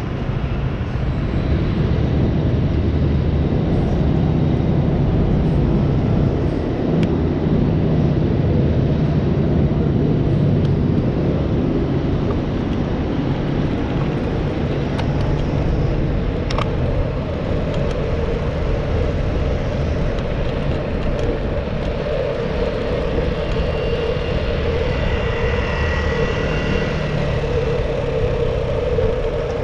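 Steady rush of passing road traffic and wind, heard from a moving bicycle's action camera on city streets. Over the last several seconds an engine hum grows stronger, with a motor scooter riding just ahead.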